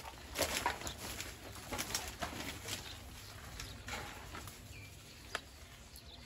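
Footsteps crunching over plastic bottles and litter, loudest in the first couple of seconds and fading as the walker moves away. Birds are calling in the background.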